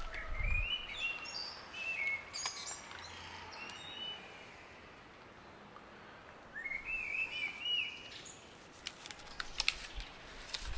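Small songbirds chirping in short, repeated phrases, in two bouts: over the first few seconds and again about seven seconds in. A few light clicks come near the end.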